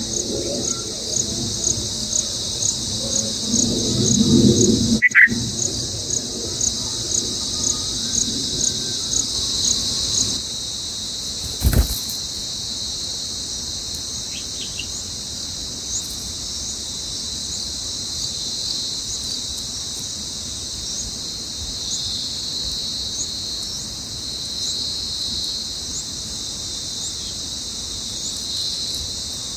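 Crickets chirping: a regular high chirp about twice a second for the first ten seconds, then a steady unbroken trill. A few sharp knocks come early, the loudest about twelve seconds in.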